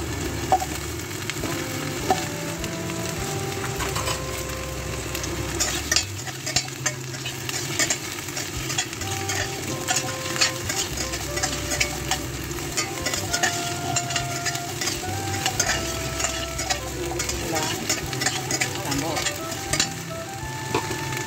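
Carrot chunks sizzling in hot oil in a stainless steel pan, with many scattered pops and the scrape of a metal spatula stirring them. They are being sautéed first to soften them.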